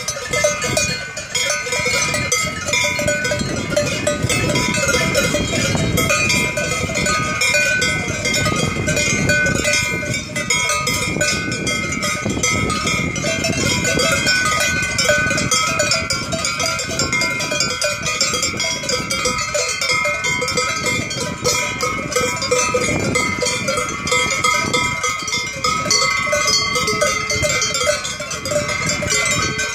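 Many cowbells on a herd of cattle ringing together without pause as the cows walk and graze, a dense, overlapping clangour of several bell pitches.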